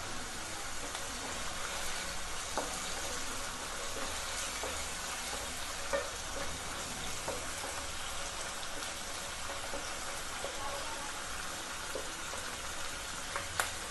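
Sliced onions, green chillies and ginger garlic paste sizzling steadily in hot oil in a nonstick pan, stirred with a wooden spatula that gives a few light knocks now and then.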